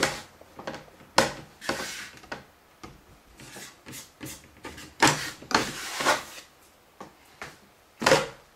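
Irregular rubbing and scraping handling noises as a wooden fingerboard ramp is moved about on a table, a series of short scrapes with quieter gaps between them.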